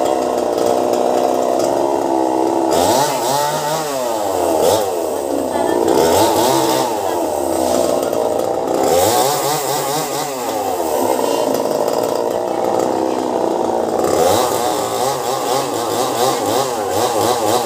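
Chainsaw running at high revs while cutting the tree, its engine pitch swinging up and down again and again as it is worked.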